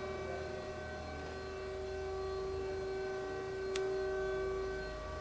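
Okuma & Howa ACT-35 CNC lathe's Z axis traversing along the bed: a steady motor whine over the machine's electrical hum, swelling in the middle, with a single sharp click about four seconds in.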